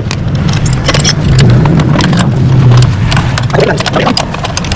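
A steady motor drone with many sharp clicks and knocks scattered over it.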